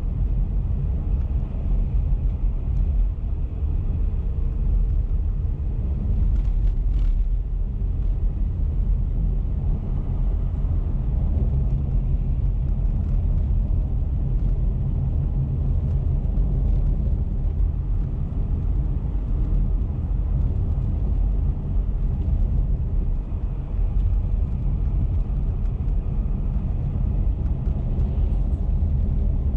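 A car driving at steady speed on the highway, giving a low, even rumble of tyre and engine noise that does not change.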